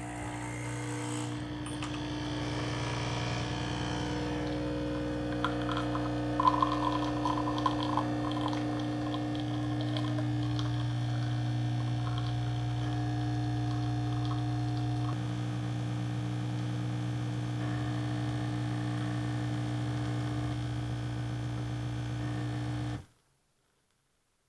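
Nespresso capsule coffee machine brewing: a steady mechanical hum, with some brief rattling about six to eight seconds in. It cuts off suddenly near the end.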